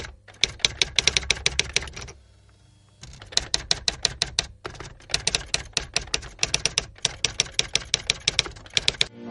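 Typewriter keys clacking in quick runs of about eight strokes a second, a sound effect for text being typed out on screen. The clacking stops for about a second around two seconds in.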